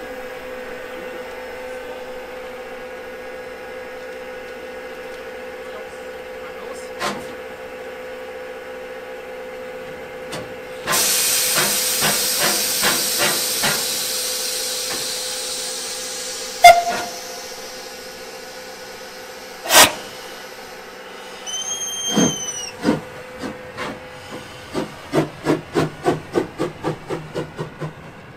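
Bavarian GtL 4/4 tank locomotive 98 886 standing with a steady hum, then letting off a loud hiss of steam with a rhythmic pulse that slowly fades. Two sharp clanks follow, then a short whistle blast, and near the end the locomotive moves off with steady exhaust chuffs, about two or three a second.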